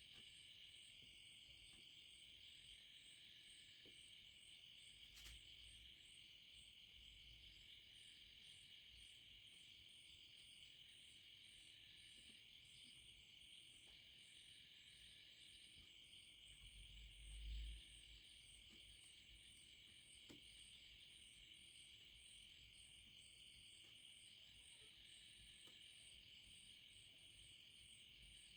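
Near silence: faint room tone with a steady high hiss and a faint, evenly repeating high chirp, plus one soft low thump about two-thirds of the way through.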